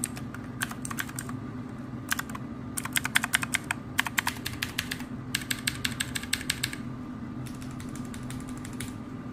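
Typing on a wireless keyboard fitted with pudding keycaps: quick runs of key clicks in several short bursts with pauses between them, as a demonstration of how the keyboard sounds. A steady low hum lies underneath.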